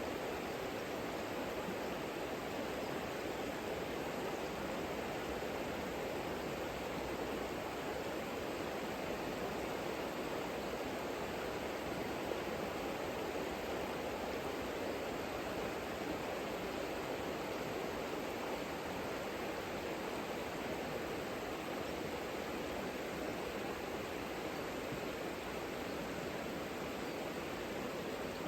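Savica mountain river flowing: a steady, even rush of water.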